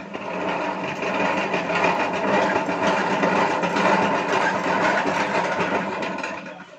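Honey extractor spinning comb frames: a steady mechanical whirr that builds up in the first second, runs evenly, then winds down and stops near the end.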